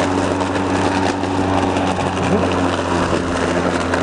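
EGO LM2130 56-volt cordless electric lawn mower running steadily at full blade speed, a steady motor hum under the rush of the blade chopping through dry fallen leaves.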